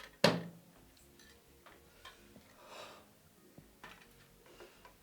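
A sudden short burst of breath, a splutter, about a quarter second in, then faint clock-like ticking in the background score.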